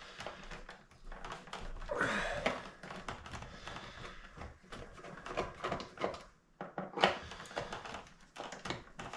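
Hands working at a toy car's cardboard and plastic packaging: scattered clicks and taps with short stretches of rustling and scraping.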